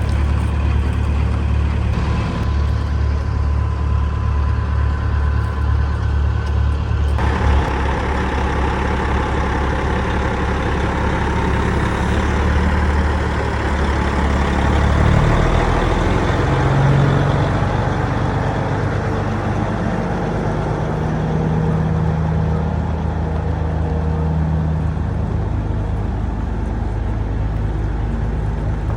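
Heavy diesel engine of a truck or combine running steadily. A broader rushing noise joins about seven seconds in, and the engine note shifts about halfway through.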